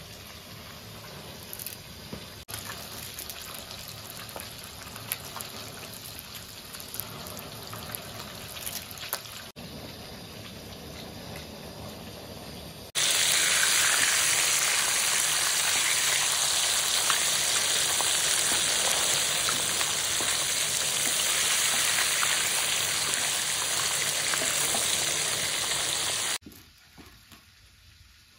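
Soft knife clicks as fresh dill is cut on a wooden chopping board. About thirteen seconds in, a loud steady hiss starts abruptly, runs for about thirteen seconds and then cuts off.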